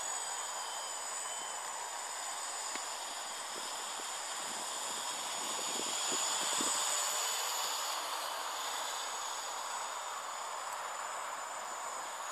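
Gaui 330X-S quadcopter's motors and propellers whirring in flight, a steady hiss that grows a little louder about halfway through as it passes closer, then eases off.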